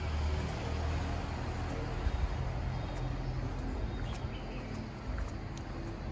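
Steady low rumble of outdoor background noise, with a few faint light ticks.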